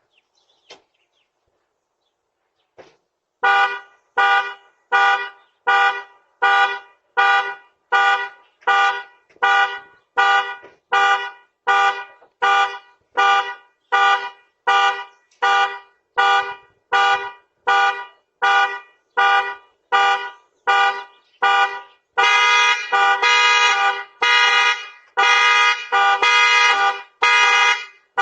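Car alarm sounding: the car's horn honks in a steady rhythm, about three honks every two seconds, starting a few seconds in, then switches near the end to longer, quicker blasts.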